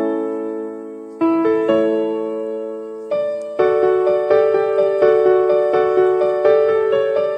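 Background piano music: a few slow held chords, each fading after it is struck, then from about halfway a steady pulse of repeated notes, about three every two seconds.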